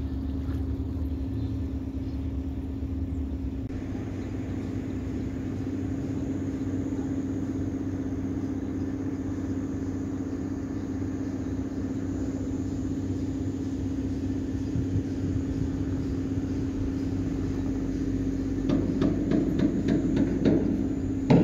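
A steady motor hum holding one pitch, with a low rumble beneath it.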